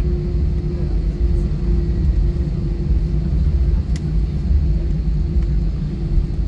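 Steady low cabin rumble inside an Airbus A320 on the ground after landing, with a steady hum above it, as the jet taxis with its engines idling.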